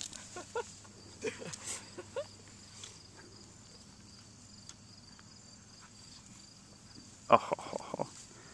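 Puppies play-fighting: short yips and squeaks in the first couple of seconds, then a louder burst of yelping squeals about seven seconds in.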